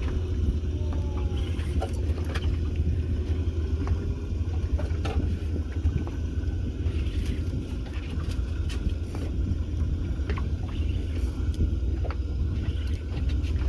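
Steady low rumble aboard a small motorboat, with scattered light clicks and knocks.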